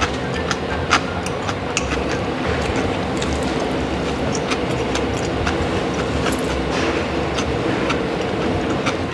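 Steady mechanical rumble of construction work going on outside, with a low drone and a few held tones, loud enough to count as intrusive background noise. Scattered small clicks of eating with wooden chopsticks sit on top of it.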